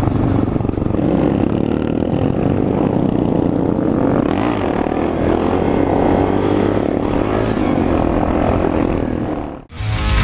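Suzuki DR650 supermoto's single-cylinder engine running steadily under way. It cuts off abruptly about half a second before the end.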